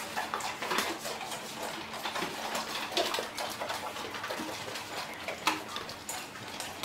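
Several dogs eating from metal bowls: an irregular run of crunching and small clinks of food and bowl, with a couple of sharper clinks about three and five and a half seconds in.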